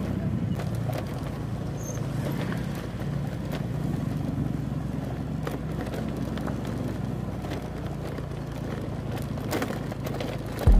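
Motorcycle engine running steadily at a constant pace while riding over a rough dirt road, with scattered short clicks and knocks.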